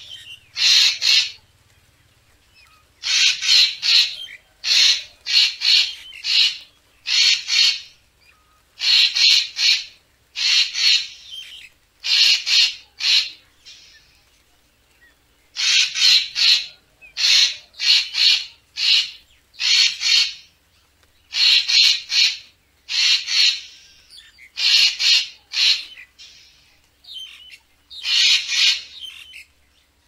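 Racket-tailed treepie calling: a long run of short, harsh calls, repeated in tight clusters of two or three, with a short break near the start and another near the middle.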